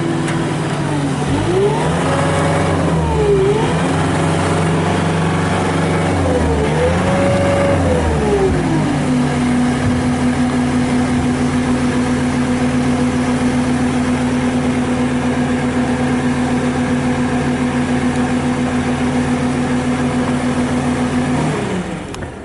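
Kubota SSV65 skid steer's turbo diesel engine running, its speed rising and falling twice over the first several seconds. It then holds steady and winds down near the end.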